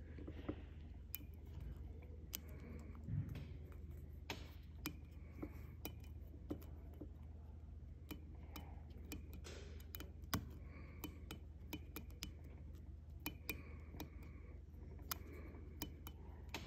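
Faint, irregular clicks and ticks of a head gasket being pressed down and rocked against an AMC cylinder head. The gasket rocks on a raised lip at the edge of the combustion chamber instead of sitting flat. A low steady hum runs underneath.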